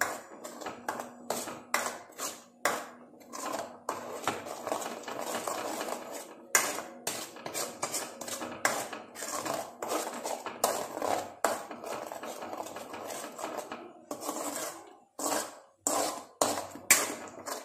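A metal spoon scrapes and knocks against a metal kadai in irregular strokes while stirring thick ground green masala paste as it fries in oil.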